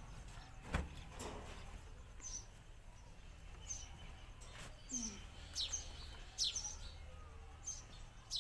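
Small birds chirping: short, high calls that sweep downward, repeated every second or so from about two seconds in. A single sharp knock about a second in, and a faint low hum underneath.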